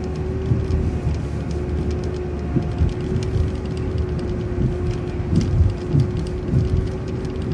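Transit bus in motion, heard from inside: a steady drivetrain whine over a low rumble, with irregular knocks and rattles from the body as it rolls over the road.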